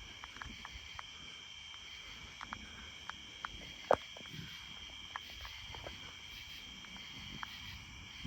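Steady high-pitched chorus of night insects, such as crickets, with scattered faint clicks and one sharper click about four seconds in.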